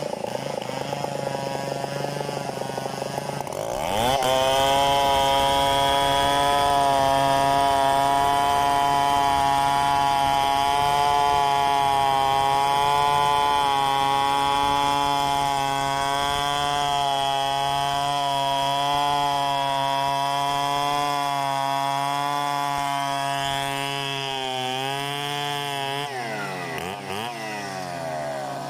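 Large chainsaw ripping lengthwise through a log in freehand milling. The saw runs at a lower speed at first, opens up to full throttle about four seconds in and holds a steady, slightly wavering pitch under load, then its speed drops and wavers near the end.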